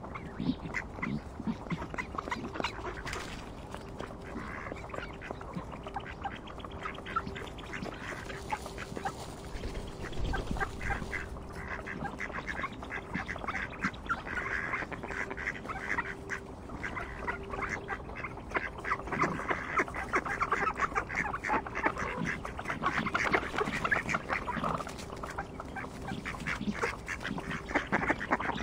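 Mallards quacking, the calls coming thick and fast and getting busier in the second half.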